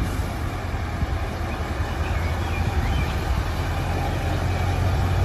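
Diesel engine of a tractor-trailer truck running with a steady low hum as the rig moves slowly.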